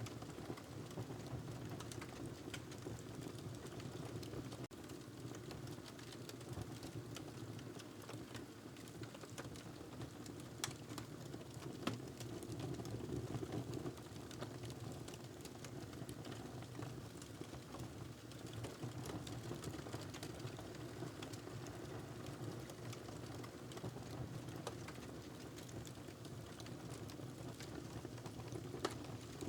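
Wood fire crackling in a fireplace: a steady low rumble of the burning fire with scattered sharp pops, one louder snap about twelve seconds in.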